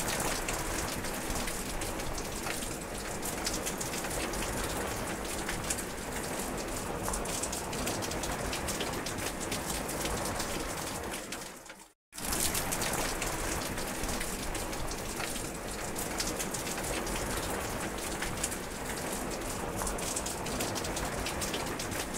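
Steady rain, falling as a dense hiss with many close drops tapping sharply. The sound cuts out completely for a moment about twelve seconds in, then resumes as before.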